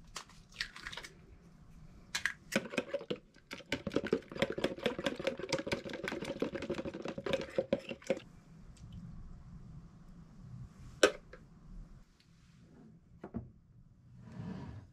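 An egg is cracked into a plastic measuring jug, then a fork whisks the eggs in the jug with rapid, even ticking against its sides for about six seconds. A single sharp knock comes later.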